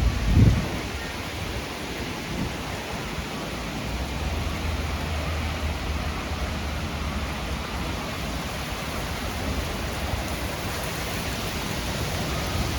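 Thunderstorm with heavy rain falling in a steady hiss. A brief, loud low rumble comes about half a second in, and a quieter low rumble of thunder or wind runs through the middle and later part.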